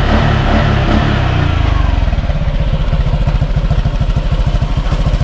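Honda Click scooter engine running through a newly fitted Sun Racing Silent Killer aftermarket exhaust pipe. It is revved and settles back to a steady idle about two seconds in.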